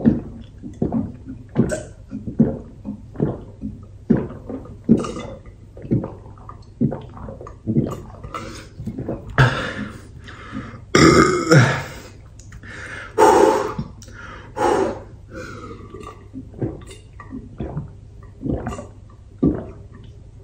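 A person chugging a drink from a large glass beer stein, with steady gulps about two a second. Near the middle the gulping stops for a few long, loud gasps and belches, then starts again.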